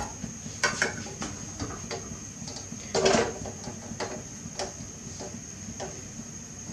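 Steel bowl of chocolate pieces, gripped by a metal pot-gripper clamp, being set down into a steel saucepan of heating water: scattered metal clinks and knocks, with a louder clatter about three seconds in.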